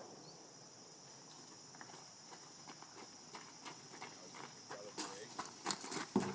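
Faint, steady high-pitched insect drone, with scattered light clicks and knocks that come more often and louder toward the end.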